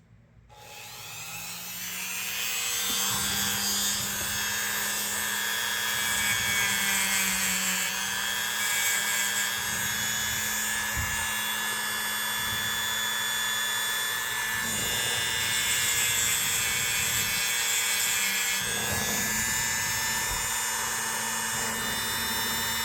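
Small electric rotary tool spinning up and running steadily with a whine, worked against a pocket knife's metal to clean off a worn marking.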